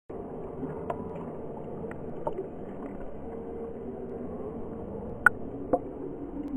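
Pool water splashing and sloshing against an action camera's waterproof housing at the surface: a steady, muffled wash of water with a few sharp knocks, the loudest about five seconds in.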